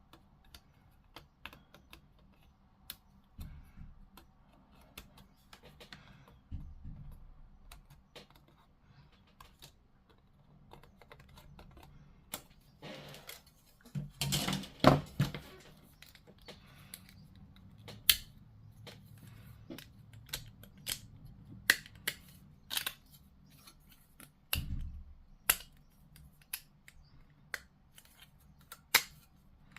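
Scattered clicks and taps of plastic model-kit parts being handled and pressed together, with a louder cluster of knocks about halfway through.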